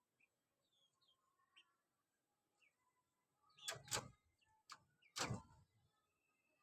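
Faint bird chirps, then two short, louder noises about a second and a half apart in the second half, with a light click between them.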